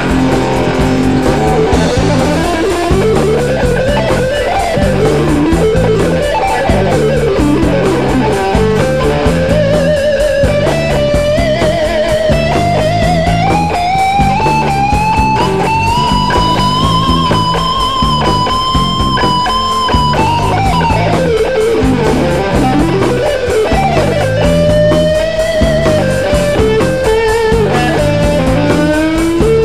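Live rock band in an instrumental break: an electric lead guitar plays a solo over bass, drums and strummed acoustic rhythm guitar. About a third of the way in, the lead climbs over several seconds to a long high note held with vibrato, then drops back down just past the middle.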